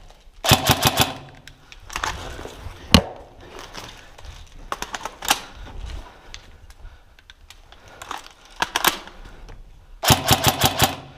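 Tokyo Marui HK416 DEVGRU airsoft electric rifle firing short full-auto bursts of rapid clacks, about six bursts with single shots between. The longest bursts come just after the start and near the end.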